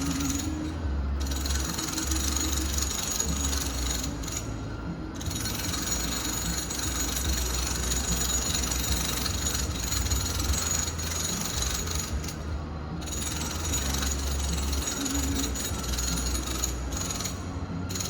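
Home renovation work heard from another part of the building, muffled and distant: a steady low drone under continuous mechanical rattling and grinding from power tools.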